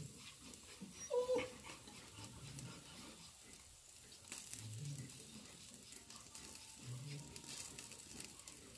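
A dog gives one short, high whine about a second in, as it waits for food; otherwise only faint low murmurs.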